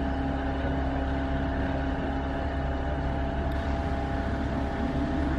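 A steady engine hum: a motor running at constant speed with a low drone, unchanging throughout.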